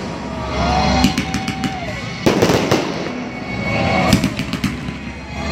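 Aerial fireworks going off: repeated bangs and crackling, the loudest bang about two seconds in.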